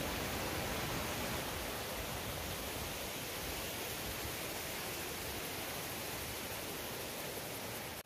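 Mountain stream rushing over rocks and small rapids: a steady, even wash of water noise.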